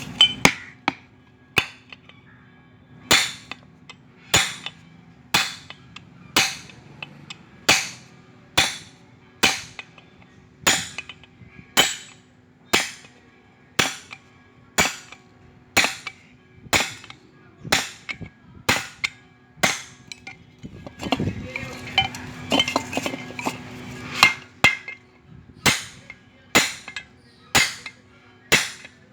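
Hammer blows on the steel shell of a fridge compressor, cutting it open for scrap: sharp metallic strikes at about one a second, each ringing briefly, over a steady low hum.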